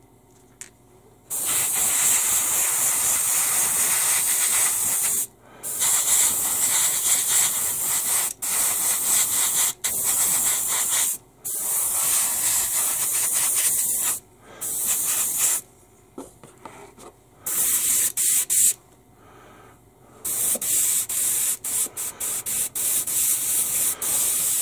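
Airbrush spraying at 10 to 15 psi, a loud hiss in long bursts broken by short pauses, turning to quick on-off bursts near the end.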